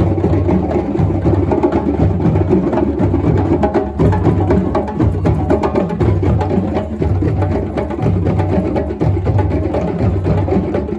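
Loud percussive music with a steady, fast rhythm of knocking strikes and low drum pulses.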